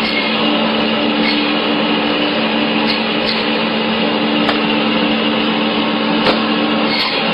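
A machine running steadily: a constant motor-like hum with two low steady tones under it and a few faint clicks.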